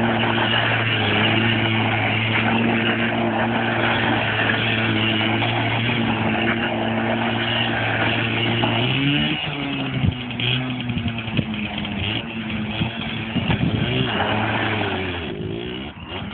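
Small motorcycle engine held at steady high revs, the rear wheel spinning in a burnout. About nine seconds in, the revs drop and rise unevenly as the bike rides off.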